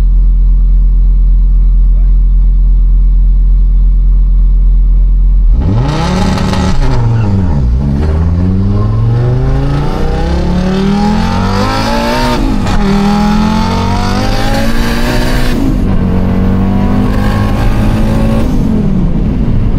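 Fiat Marea's turbocharged 2.4 five-cylinder engine, heard from inside the cabin, held at a steady drone on the line, then launching about five and a half seconds in. The revs sag right after the launch, then climb with gear changes, and fall away near the end. The driver puts the sag down to launch control set too soft and the car bogging in the gears.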